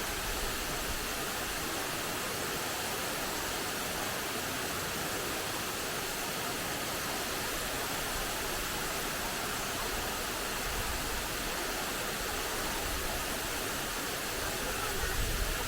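Salza waterfall rushing steadily: an even hiss of falling water, with a low rumble rising near the end.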